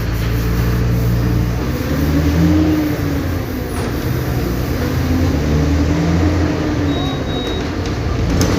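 Mercedes-Benz OF-1722M bus's 218 hp diesel engine running under way, its note climbing and dropping twice.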